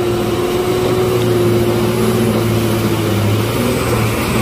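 Loaded cargo truck's diesel engine running steadily at low speed under load as the truck crawls over a rough, rutted road, a constant low hum.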